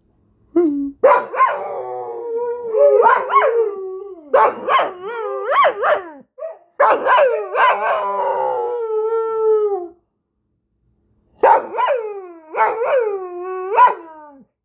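A dog howling in four long bouts, its pitch wavering up and down and sliding down at the end of each bout, with short pauses between them.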